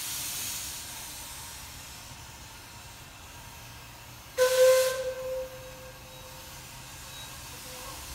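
Shay geared steam locomotive SL-31 hissing steam, with a short, loud steam-whistle blast about halfway through that falls away to a faint lingering tone.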